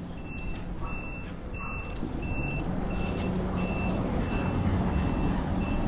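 A vehicle's reversing alarm beeping steadily, one short high beep about every two-thirds of a second, over a low engine hum that grows a little stronger about halfway through.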